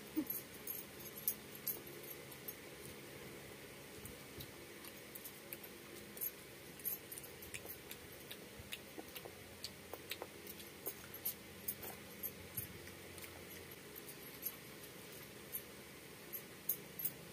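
Close-up eating sounds of rice and curry eaten by hand: scattered wet clicks and smacks of chewing and lips, a few each second at irregular intervals, with soft squishing as the rice is mixed with the fingers.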